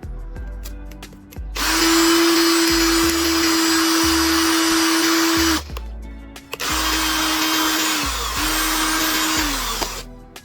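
A small electric power tool, like a drill, runs three times: once for about four seconds, then twice more briefly, its pitch sagging each time it stops. Background music plays underneath.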